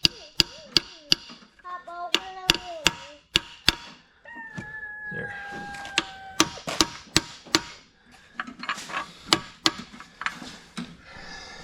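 Runs of sharp knocks or taps, about three a second, in several bursts. A steady, slightly falling whine runs for about two seconds in the middle.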